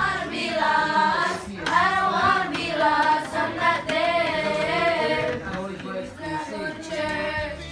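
A group of children singing together, several voices in unison.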